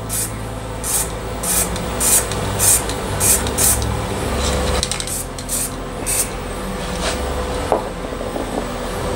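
Aerosol can of grey primer spraying in short hissing bursts, about two a second, laying a thin coat on a glass plate. The bursts stop about six seconds in.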